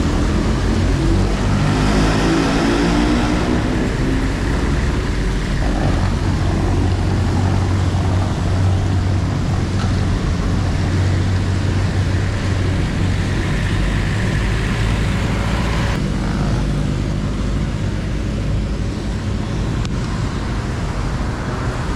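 Busy city road traffic: a steady low rumble of motor vehicles, with one engine audibly speeding up in the first few seconds.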